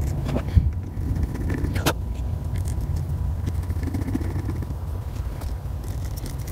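A few sharp clicks of small screws being dropped into a random orbital sander's backing pad and started with a hand screwdriver, over a steady low rumble.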